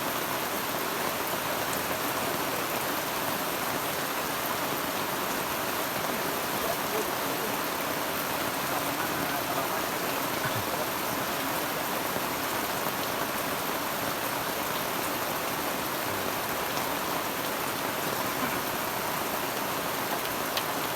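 Steady rain falling, an even hiss of rain with no let-up.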